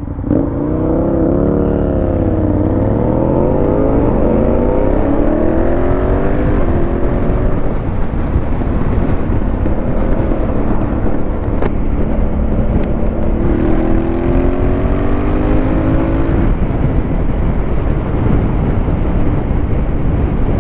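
Motorcycle with an aftermarket Fuel exhaust pulling away under power. The engine note rises and drops back several times through quick gear changes in the first seven seconds. After about thirteen seconds it rises through one more gear.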